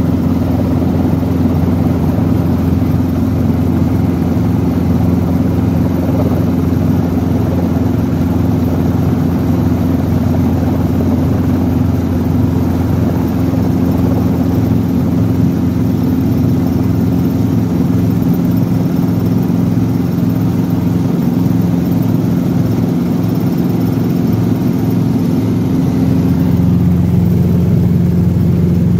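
Small Robinson piston helicopter's engine and rotors running at a steady drone, heard from inside the cockpit as it hover-taxis low over grass.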